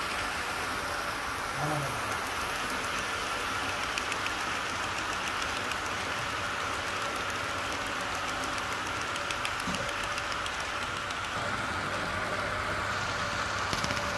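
HO-scale model trains running on sectional track: a steady rolling hum of wheels and motors, with rapid clicking of wheels over the rail joints as a train of model tank wagons passes close by.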